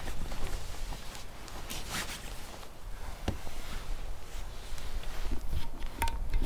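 Wind buffeting the microphone in a low, uneven rumble, with the rustle of a nylon down jacket as arms move and a few light knocks, the last near the end.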